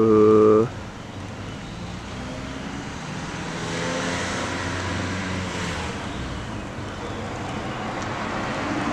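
Road traffic: a motor vehicle drives past, its engine and tyre noise swelling to a peak about four seconds in and then easing off.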